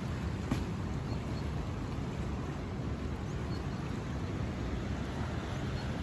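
Steady low rush of water pouring and churning at the foot of a dam, with wind buffeting the microphone.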